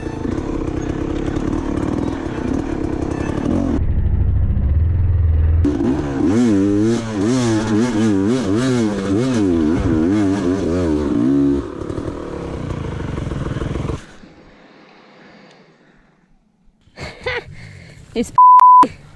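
Dirt bike engine running hard, its revs swinging rapidly up and down over and over, then cutting out about fourteen seconds in. Near the end come a few short noisy bursts and a loud steady electronic beep.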